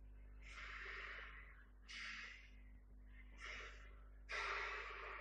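A person breathing faintly close to the microphone, four soft breaths.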